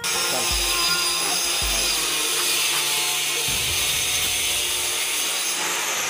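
Cordless drill running steadily into the wooden door at the lock's handle plate, with background music and a low beat underneath.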